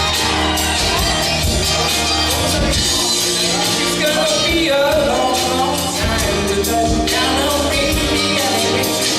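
A band playing a song live, with a steady drum beat, bass and a singer's voice.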